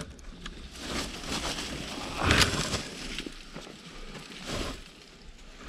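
Irregular crunching and rustling of footsteps through dry leaves and brush on a climb, with the loudest crunch about two and a half seconds in.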